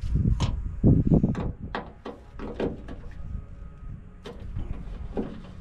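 Knocks, clunks and clicks of hand tools being handled at a truck tailgate, as a Torx bit and extension are made ready to undo the tailgate panel's bolts. The heaviest thuds come in the first second and a half, followed by lighter scattered clicks.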